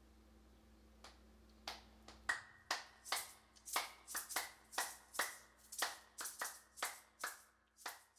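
Slow, uneven hand claps, about two or three a second, starting faintly about a second in.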